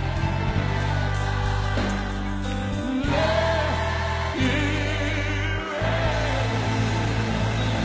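Gospel choir singing over instrumental accompaniment, with long held low notes that change chord every second or two.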